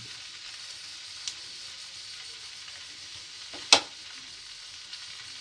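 Chopped onions sizzling steadily as they sauté in oil in a metal kadai. A sharp metallic clink of the metal spoon against the pan stands out just under four seconds in, with a fainter click at about one second.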